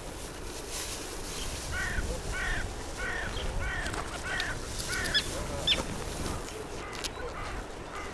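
A duck quacking a quick, evenly spaced series of about six calls, followed by two higher, sharper calls.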